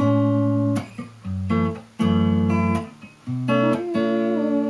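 Acoustic guitar strumming chords in an instrumental break between sung lines. Each chord is cut off short, leaving brief gaps.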